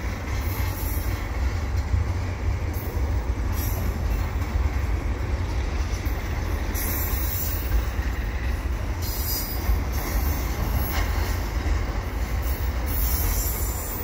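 Freight train of double-stack container well cars rolling past at speed: a steady low rumble of steel wheels on the rails, with a high hiss that swells and fades every second or two.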